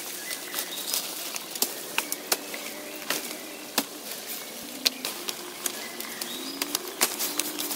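Dry leaves, twigs and stems crackling and snapping sharply again and again as undergrowth is pushed through and a long stem is pulled and worked. Low repeated bird calls and a few faint chirps sound in the background.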